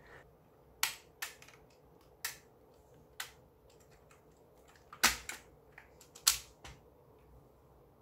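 Wire keycap pullers clicking and clacking against the shift keycap and keys of an HP GK100 mechanical keyboard as the keycap is pried off. About eight sharp, separate clicks at an uneven pace, the loudest about five seconds in and just after six.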